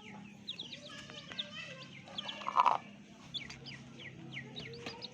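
Several chicks peeping continuously, each peep a short falling whistle, with a louder call about two and a half seconds in.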